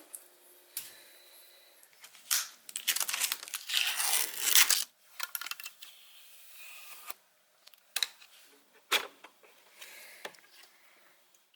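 Packaging being torn and crinkled in irregular rustling bursts, loudest about two to five seconds in, followed by quieter rustling and two sharp clicks.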